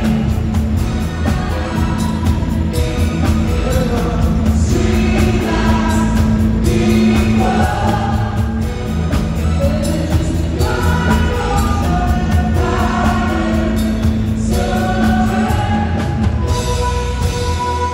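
A live pop band playing through the PA: several vocalists singing together over electric bass, keyboard and a steady beat.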